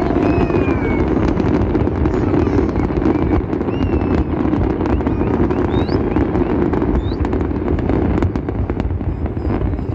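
Fireworks display: a dense, continuous rumble of many overlapping bursts with crackling, and a few short rising whistles about six and seven seconds in.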